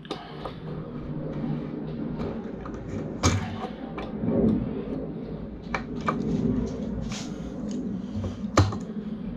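Utility knife being drawn along thin wire to strip its insulation, with scraping and handling noise and two sharp knocks, one about three seconds in and one near the end.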